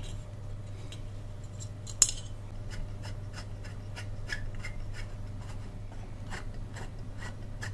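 Light, irregular clicks and ticks of hands working a new dial cord on a valve radio's metal chassis, at the tuning drum and tuning shaft, with one sharper click about two seconds in.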